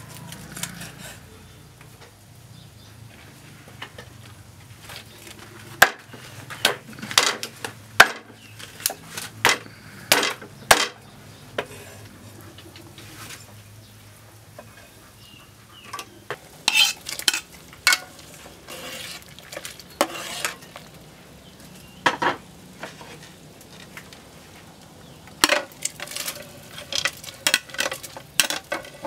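Meat cleaver chopping boiled chicken on a wooden chopping board: sharp, irregular knocks in short runs with pauses between them. Near the end a metal spoon taps and scrapes as shredded chicken is pushed from a bamboo basket into an aluminium pot.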